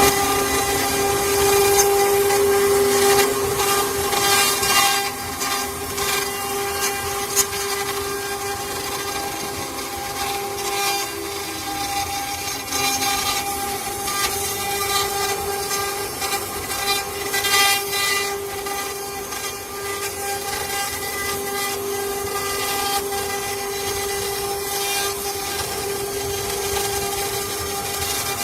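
CNC wood router at work, its spindle running with a steady whine while the cutter works through wood, with a rough cutting noise over it that varies now and then.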